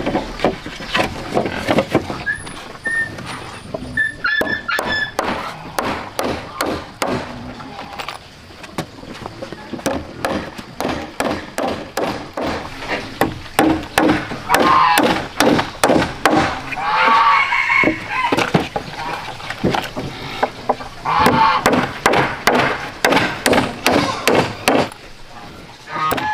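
Steel hammer driving nails through wooden planks into a log frame: runs of quick, sharp strikes with short pauses between them.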